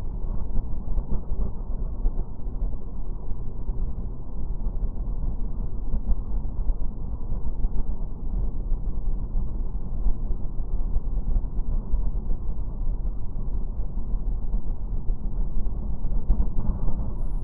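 Steady low rumble of wind buffeting and engine noise picked up by a helmet camera on a Triumph Explorer motorcycle under way. The footage is played slowed down, so the sound is deep and muffled, with no higher sounds.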